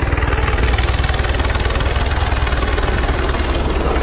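Helicopter flying low overhead, its rotor giving a fast, steady beat, mixed with surf and wind noise.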